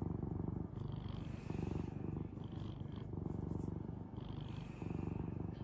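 Orange tabby cat purring right at the microphone while being scratched on the head, a steady low pulsing purr that swells and dips with each breath.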